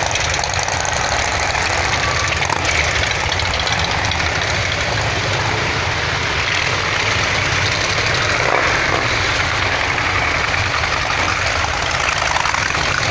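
Many motorcycle engines running together at low speed as a column of cruiser, touring and sport motorcycles rides slowly past, a steady loud engine din with no break.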